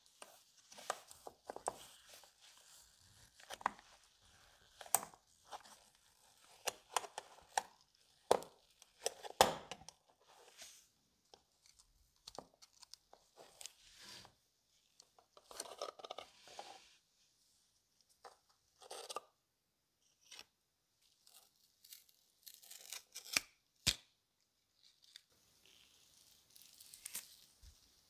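Old, damaged leather covering being peeled and torn off the brass barrels of a pair of vintage opera glasses: irregular rips and crackles with a few sharp snaps, in spurts with short pauses between.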